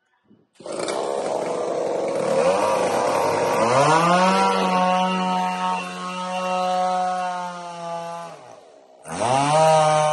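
Chainsaw cutting into a log wall. It starts suddenly and sounds ragged at first, then the saw climbs to full speed and holds steady. It drops away briefly about eight and a half seconds in, then revs back up near the end.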